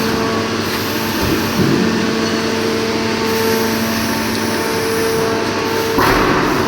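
Factory machinery of a corrugated steel plate forming line running with a steady hum and broad mechanical noise. About six seconds in, a brief louder burst of noise covers the hum.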